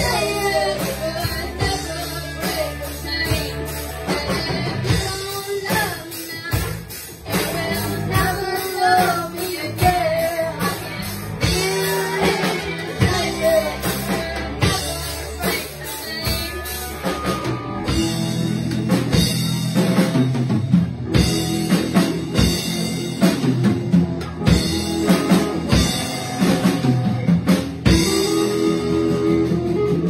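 Live rock band playing: electric guitars and a drum kit with a singer over the first half or so, then about two-thirds in the guitars and heavier drumming carry on without vocals.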